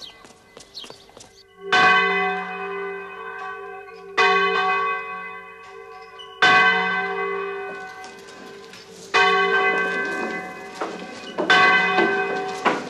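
Large church bell tolling: five strokes about two and a half seconds apart, each ringing on and fading slowly before the next. The first stroke comes near two seconds in.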